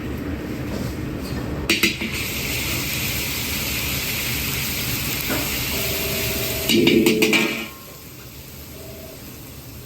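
Cooking sizzling loudly in hot oil over a steady burner rumble, with sharp metal clatters of utensils on a wok or pan about two seconds in and again around seven seconds. The sizzle cuts off suddenly near the end.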